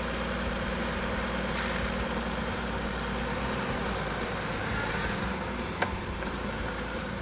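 An engine running steadily, a low rumble with a hum whose pitch changes about four seconds in. A single sharp click sounds near six seconds.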